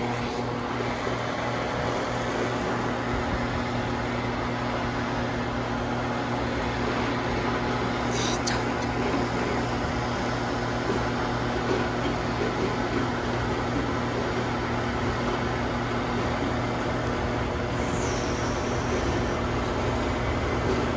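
Diesel train engine idling with a steady low hum, with voices chattering in the background. A short high squeak comes about eight seconds in, and a brief falling high tone near the end.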